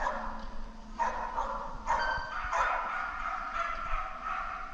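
A dog barking repeatedly, about once a second, with the barks echoing in a large indoor hall.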